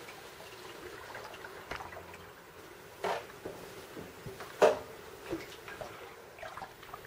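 Kayak paddle blades dipping into calm water: a few short splashes and drips at uneven intervals, the loudest about halfway through.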